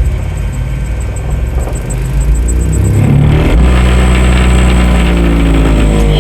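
Massive Audio GTX 15-inch subwoofer playing deep bass at full power on the bench. The bass is loud and gets louder and steadier about halfway through.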